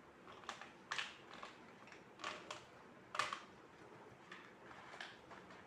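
Faint, short scratchy rustles, about five of them at uneven intervals, as crayons are handled and rubbed on paper.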